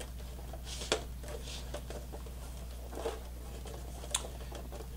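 Hands handling a PS3 Blu-ray drive's thin sheet-metal case: faint rubbing and a few light clicks and taps, the sharpest about a second in, about three seconds in and near the end, over a low steady hum.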